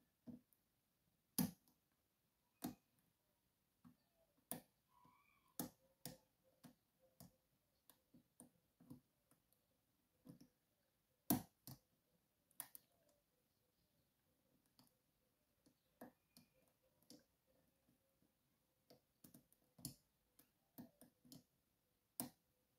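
Faint, irregular metallic clicks of a hook pick lifting pins in a Schlage Primus lock cylinder held under tension, at uneven intervals, with the loudest click about eleven seconds in.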